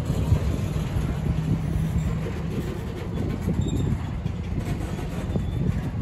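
Freight train cars (covered hoppers and tank cars) rolling past at close range: a steady low rumble of steel wheels on rail, with irregular clunks.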